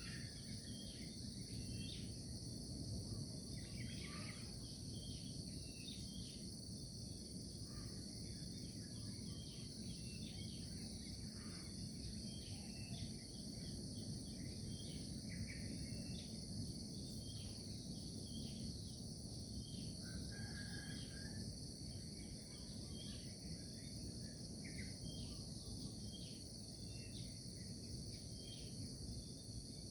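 Nature ambience: a steady, high-pitched chorus of insects trilling without a break, with scattered short bird chirps and a low background hiss.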